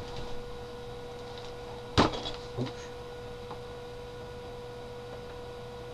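Steady electrical hum, with a sharp knock about two seconds in and a softer knock just after.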